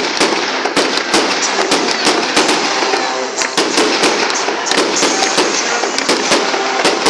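Fireworks display: a rapid, irregular string of sharp bangs, several a second, over continuous crackling.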